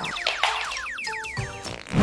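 Intro music: a quick run of short sliding notes with a couple of brief held tones in the middle, fading out near the end.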